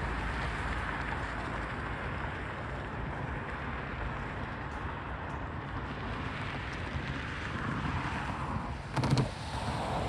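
Intermodal stack train cars rolling past, a steady rumble of steel wheels on rail. A short, louder knock comes about nine seconds in.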